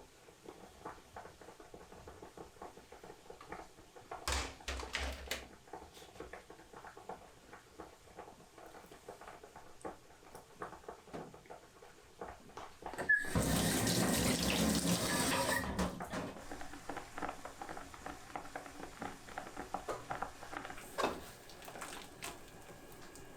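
Kitchen tap turned on and running into the sink for about two and a half seconds, about halfway through. Small clicks and knocks of kitchen work are heard around it.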